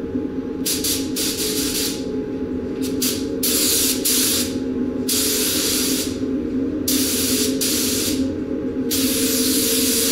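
Compressed-air paint spray gun hissing in bursts as the trigger is pulled, laying clear coat on a car roof. It starts under a second in with short bursts, moves to longer passes, and runs unbroken for about the last second, over a steady low hum.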